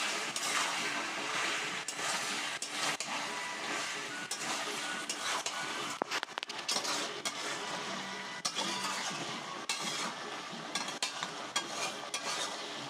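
A metal spatula stirs and scrapes through chicken feet, chicken skin and potatoes frying in masala in a metal karai. There are repeated scrapes and clicks against the pan over a steady sizzle.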